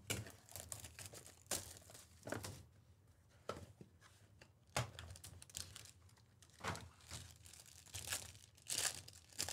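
Opening a trading-card hobby box: the card-stock lid handled and the sealed foil pack wrapper inside torn and crinkled open by hand, in short, irregular rustles.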